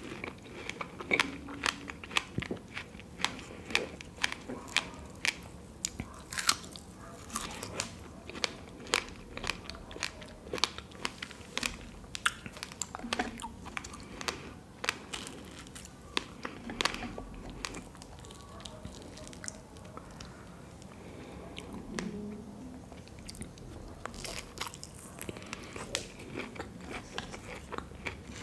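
Close-miked eating: chewing with many sharp, wet mouth clicks, from fresh strawberry and black forest cake.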